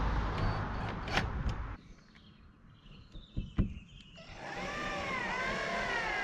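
Cordless drill running as it bores screw holes through the van's sheet-metal roof, stopping abruptly about two seconds in. A couple of light clicks follow, then birds chirping near the end.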